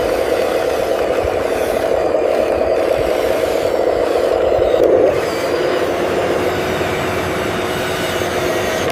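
Radio-controlled construction models running: a steady motor-and-gear whir with some scraping. It swells briefly about five seconds in, then settles a little quieter.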